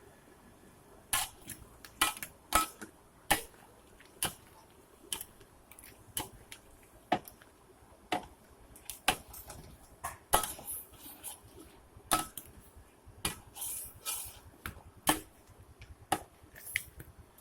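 A cooking utensil clinking and knocking against a pan in irregular sharp strikes, about one or two a second.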